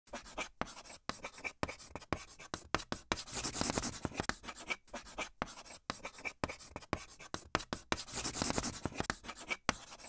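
Chalk writing on a chalkboard: quick scratchy strokes with short gaps, with two longer runs of steady scratching about three seconds in and again near the end.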